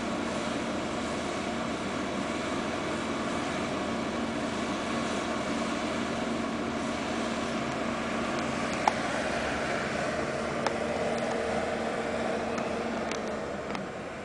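Tracked hydraulic excavator's diesel engine running with a steady drone, with two short sharp clicks partway through.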